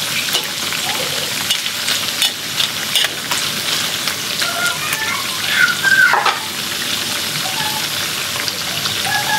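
Beef dendeng sizzling as it fries in a steel wok, cooking down toward crisp, while a metal spatula scrapes and clicks against the wok as the pieces are stirred.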